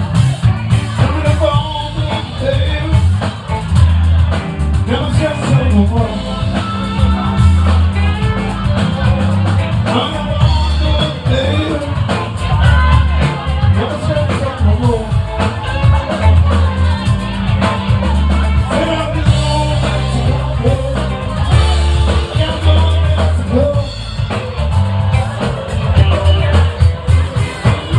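Live rock band playing: electric guitars, bass and drum kit driving a steady beat, with a singer over the top.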